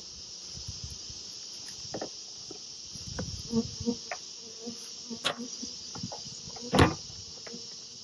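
A plastic beehive lid being set back on the hive, knocking into place a little past halfway and again, loudest, near the end. Honeybees buzz briefly over a steady high drone of insects.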